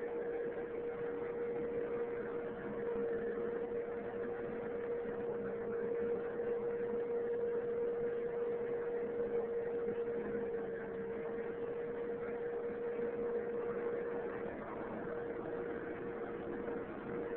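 Vacuum cleaner running, its motor giving a steady whine over the rush of air.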